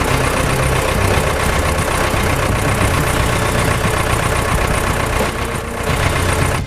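Diesel engine of a Balkancar DV-1792 micro-loader running steadily, with a brief drop in level a little over five seconds in.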